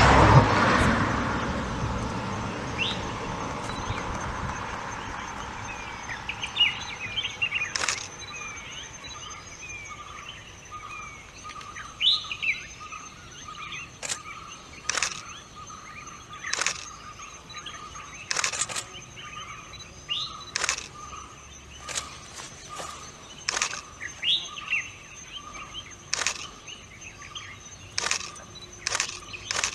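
Hillside ambience: a vehicle's noise fading away over the first few seconds, then birds chirping over a steady high-pitched drone and a faint pulsing tone, with sharp short calls every second or two.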